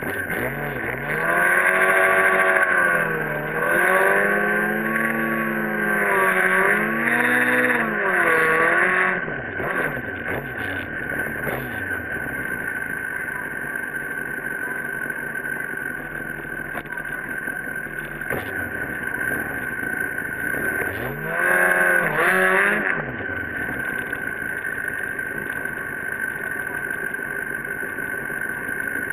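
Drag-racing motorcycle engine revved in repeated bursts, its pitch rising and falling, for about the first nine seconds, then running more steadily at idle, with one more short burst of revs about 22 seconds in.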